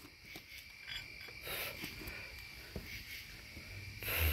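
Steady chorus of night insects: a constant high-pitched trill with no breaks. A few faint clicks sound over it, and there is a brief burst of noise near the end.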